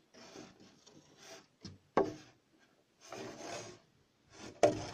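Wood scraping against wood in short strokes, with one sharp knock about two seconds in: a notched timber rafter being worked onto its seat on a beam.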